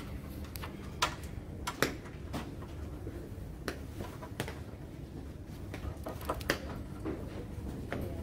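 Steady low hum of an indoor office room with scattered light clicks and taps, about a dozen at irregular spacing, the sharpest about a second in and just under two seconds in.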